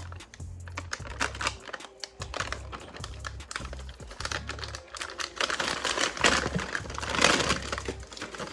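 Rapid, irregular clicking and tapping of small hard plastic toy parts being handled, louder and denser about seven seconds in.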